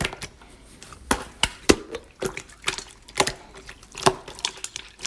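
Hands playing with slime: an irregular series of sharp clicks and pops, about two a second.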